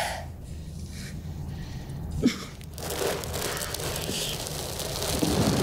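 A film's soundtrack: a low steady rumble of ambience with faint rustling and scraping of clothing and shoes on concrete, one short tick a little past two seconds in, growing louder and busier near the end.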